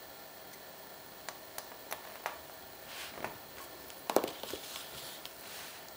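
Handling of bobbin-lace work: a few faint ticks, a soft rustle of thread about three seconds in, then a quick cluster of clicks a little after four seconds, the loudest part, as the wooden lace bobbins knock together.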